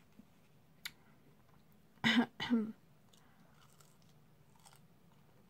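Person eating cheese-covered fries: faint mouth and fork clicks, and about two seconds in a loud, short two-part throat clearing.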